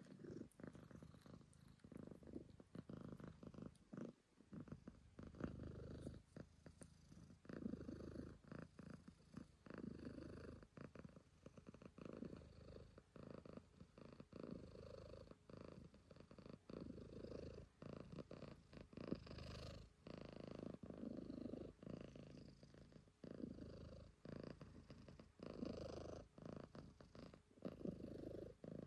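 Calico cat purring close to the microphone, the purr coming in swells a second or two long. A brief noise of movement about two-thirds of the way in.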